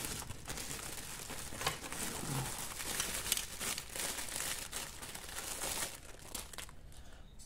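Clear plastic packaging bag crinkling and crackling as it is handled and opened, with sharp crackles for about six seconds before it goes quieter near the end.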